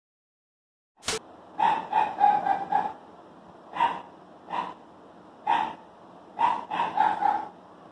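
Marker squeaking on a whiteboard in short strokes, as a hand writes text, after a click about a second in.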